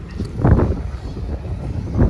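Wind buffeting the phone's microphone in uneven gusts, a rumbling rush with a strong gust about half a second in.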